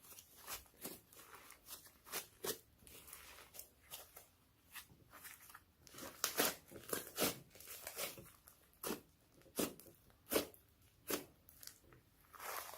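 Homemade slime being kneaded and stretched by hand: irregular sticky pops and crackles, a few a second.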